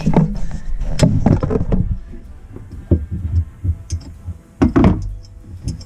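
Irregular clunks and knocks of hands and tools working on a kitchen faucet's fittings, with sharper knocks about a second in and again near the end.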